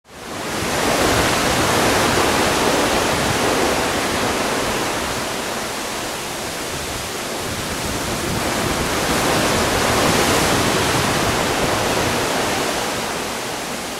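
Steady rush of sea water churning along a moving cruise ship's hull, swelling and easing slowly.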